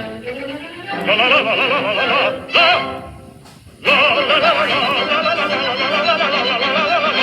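Cartoon frog singing in an operatic style with wide vibrato. It comes in short phrases with a brief break about three seconds in, then one long sustained passage.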